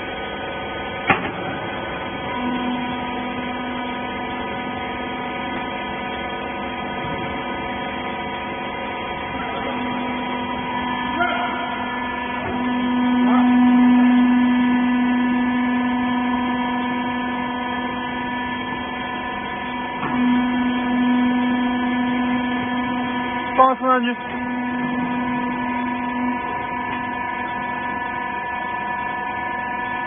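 Hydraulic power unit of a 20 kg cube wiper baler running with a steady hum, louder for a few seconds near the middle. A couple of knocks about two-thirds of the way through.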